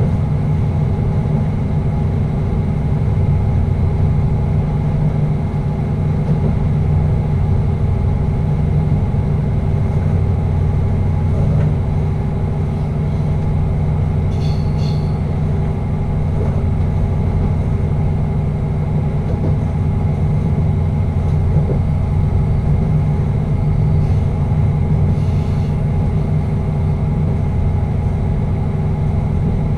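Passenger train running steadily, heard inside the driver's cab: a constant low engine drone and running rumble with a few steady hum tones. A few faint ticks come about halfway through and again near the end.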